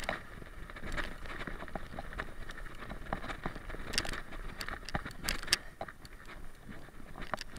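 Mountain bike descending a dirt forest trail at speed: tyres rumbling over the ground, with frequent sharp rattles and clicks from the bike over bumps, the loudest cluster about four to six seconds in.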